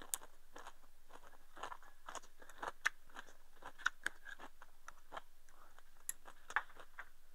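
Wooden chopsticks clicking against a ceramic rice bowl as rice is shovelled into the mouth, with chewing: a scattered string of small sharp clicks and crunches.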